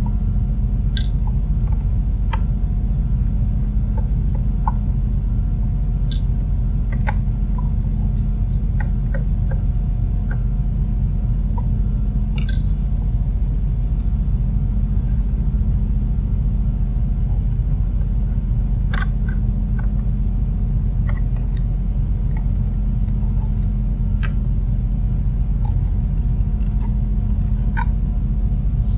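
Small screwdriver working the screws out of an LED light's plastic-housed board, with scattered light clicks and taps of metal on plastic, over a steady low hum.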